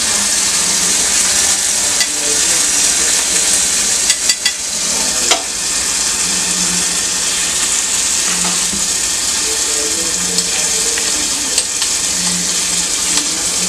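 Chopped garlic and green chilli sizzling in hot oil in a small ladle: a steady high hiss. A spoon stirs through it, with a few sharp clicks of the spoon against the ladle about four and five seconds in and again near the end.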